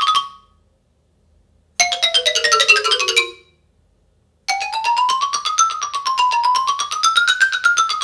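Synthesized cartoon-style sound effects. A trill cuts off, then after a short silence a 'tumble down' effect of rapid notes steps downward in pitch for about a second and a half. After another pause, an 'up and down' effect of fast pulsing tones glides up and down in pitch in waves.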